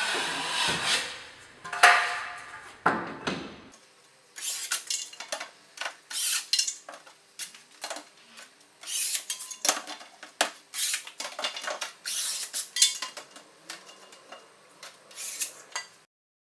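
Rubbing and scraping against the drywall corner for the first few seconds. Then a run of light, irregular clicks and clacks of hard tools and plastic trim being handled, ending abruptly just before the end.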